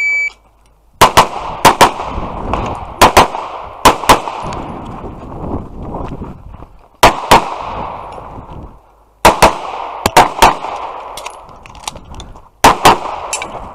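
Electronic shot timer start beep, then a pistol fired about a dozen times during an IPSC stage, mostly in quick double taps separated by pauses while the shooter moves between positions, each shot echoing.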